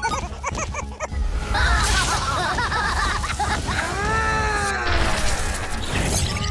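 Cartoon monster-fight soundtrack: music under a deep steady rumble, with wavering, arching creature screeches twice and crashing hits.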